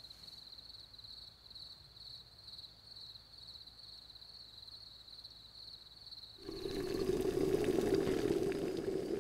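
Crickets trilling steadily in the night; then, after about six and a half seconds, a Bialetti moka pot on a camping gas stove starts bubbling loudly as the coffee comes up.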